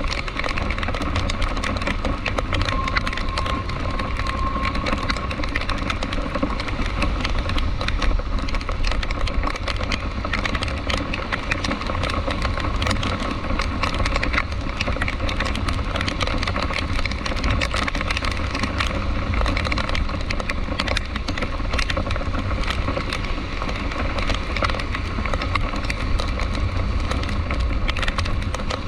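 Rain striking a car as dense, irregular ticks, over the steady low rumble of the car driving.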